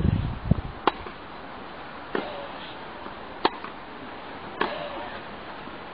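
Tennis rally: four sharp racquet strikes on the ball, evenly spaced about a second and a quarter apart.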